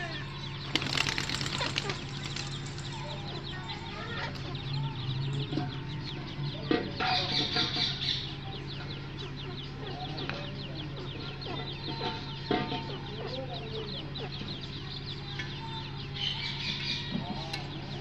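Fowl clucking and giving short calls over a steady low hum, with two loud bursts of rustling or flapping, about a second in and again around seven seconds.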